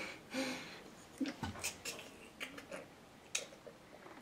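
Faint, irregular clicks and ticks, with a brief grunt near the start and a low thump about a second and a half in, as a man strains through a pull-up on a doorway pull-up bar.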